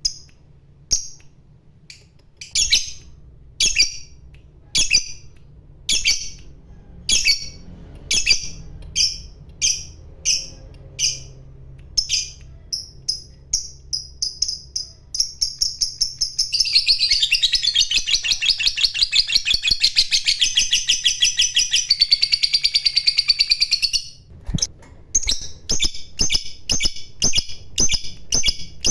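Lovebird singing: sharp high chirps about once a second that quicken, then run together into a long, rapid chattering trill (the 'ngekek') lasting about eight seconds, before breaking back into separate quick chirps.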